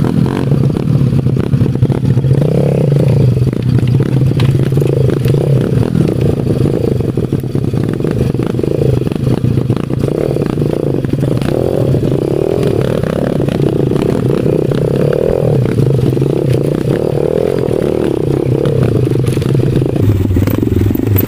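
Small 110 cc pit bike engine running steadily while the bike is ridden over rough trail, with constant clattering and scraping from the bike over the rough ground.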